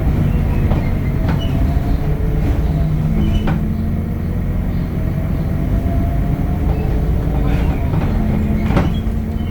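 Temsa Avenue LF 12 city bus running, its DAF diesel engine and ZF gearbox giving a steady drone with a slowly shifting hum. Several sharp knocks or rattles are spread through it, the last and loudest near the end.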